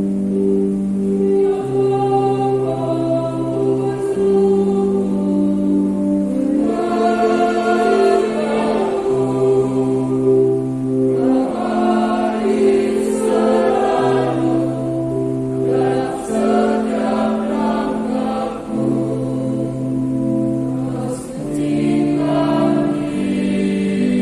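Church choir singing a slow communion hymn in parts, with long held notes.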